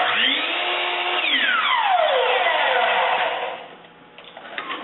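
Chop saw (mitre saw) motor starting with a rising whine as the blade spins up for a crosscut through a wooden workpiece, then falling in pitch as it winds down. The sound stops about three seconds in.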